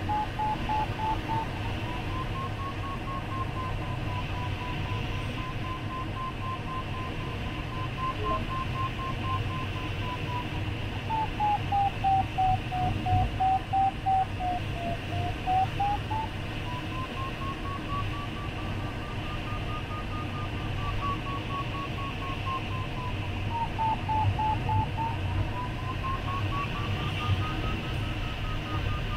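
A glider's audio variometer beeping quickly, its pitch slowly rising and falling as the lift changes. It dips lowest about halfway through and climbs highest near the end. The steady beeping signals that the glider is climbing while circling in a thermal, with a low rush of air past the cockpit underneath.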